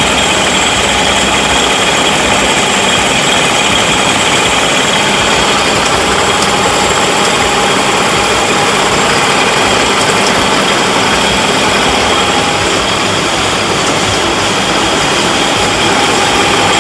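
Welding-electrode production machinery running steadily: a loud, even industrial din with several constant whining tones over a dense hiss.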